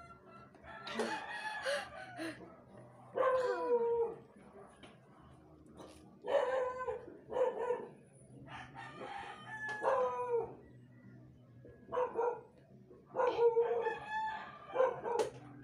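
Roosters crowing again and again, a raspy falling call every couple of seconds.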